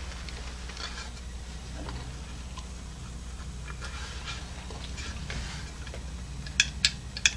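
Faint handling sounds over a steady low hum while a spring is fitted into a homemade hinged wooden foot switch, then a few sharp clicks near the end as its top board is pressed down against the spring and roller micro switch.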